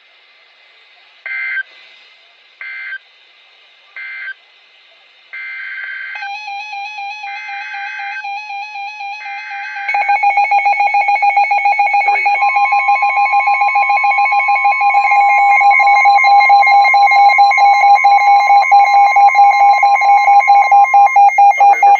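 NOAA Weather Radio alert signalling: three short data bursts close the previous warning. Three longer SAME header bursts then announce the next alert. About ten seconds in, a loud, rapidly pulsing electronic alarm starts, with the steady Weather Radio warning tone sounding under it for about eight seconds.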